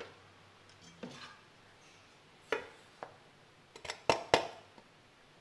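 Stainless-steel mixer-grinder jar clinking and knocking against a steel plate as ground eggshell powder is tipped out of it. There are a handful of scattered metal knocks, and the two loudest come close together about four seconds in.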